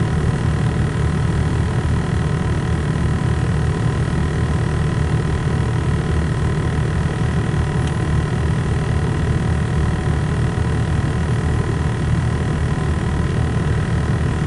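Long CN double-stack container freight train rolling past: a steady low rumble of wheels on rail that keeps an even level.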